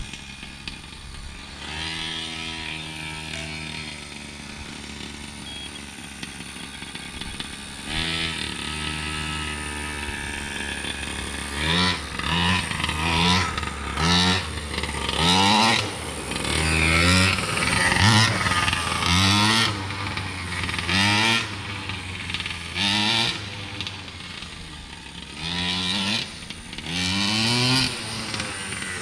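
Primal RC Raminator monster truck's gas two-stroke engine idling steadily, then revved in short repeated bursts, its pitch rising and dropping back about once a second; the engine is still being broken in.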